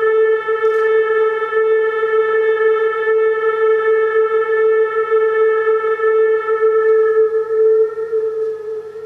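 A single sustained drone tone with a rich stack of overtones, held steady at one pitch and fading out over the last second or so.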